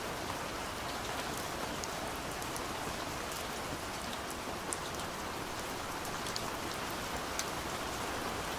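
Steady gentle rain falling on a window, an even hiss with scattered sharp drop ticks.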